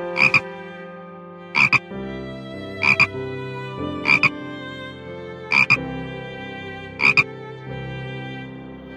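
An animal giving a short two-note call six times, about one every second and a half, over a steady background drone.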